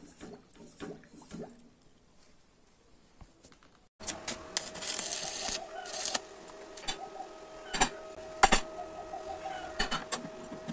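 Light knocks and clicks as a small air compressor is handled on a steel grate, then a short near-quiet gap. After a cut, a stick-welding arc crackles and hisses for a second or two over a steady whine, followed by a few sharp metallic knocks.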